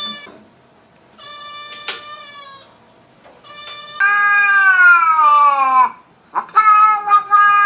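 A kitten meowing again and again: a few shorter calls, then two long, louder wails starting about four and six and a half seconds in, the first sliding down in pitch.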